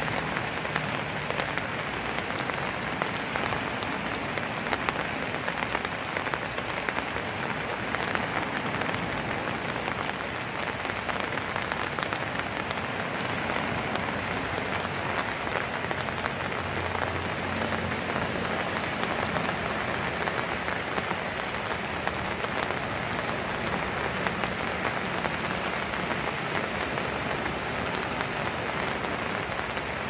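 Heavy tropical rain pouring steadily, a dense even hiss of drops with no let-up.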